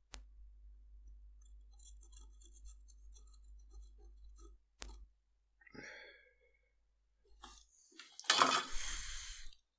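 Faint crackling of flux heating under a soldering iron tip over a low hum, then a loud, brief rustling noise near the end.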